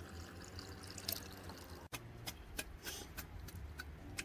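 Grape juice dripping and trickling faintly through a strainer as the crushed grapes are squeezed, with scattered small clicks and ticks.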